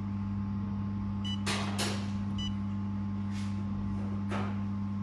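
Steady low electrical hum of a switched-on handheld laser welding machine. Two short high beeps from its control panel sound about a second apart as the settings are pressed, with a few soft brushing noises.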